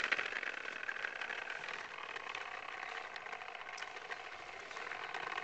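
Lawn mower running steadily, with a light rattle.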